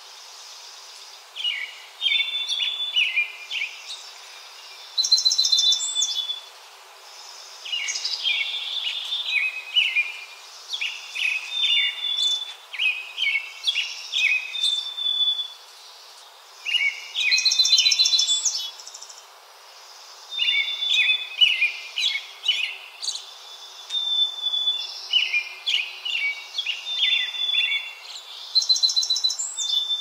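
A small songbird singing: one varied song after another, each a quick mix of high clear notes, buzzy notes and rapid trills, repeated every couple of seconds, over faint background hiss.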